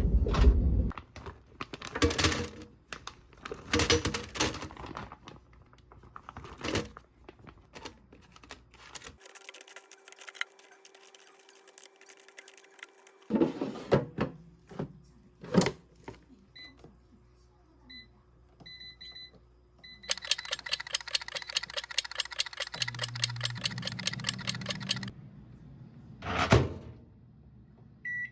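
Assorted knocks and clicks of things being handled, with a few short electronic appliance beeps and a stretch of rapid, even ticking about two-thirds of the way through.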